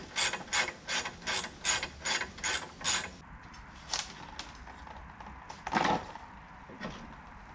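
Hand ratchet clicking in a steady rhythm, about three strokes a second, while undoing the mounting fasteners of a car's transmission cooler. It stops about three seconds in, and a few knocks follow as the cooler is worked loose, the loudest about six seconds in.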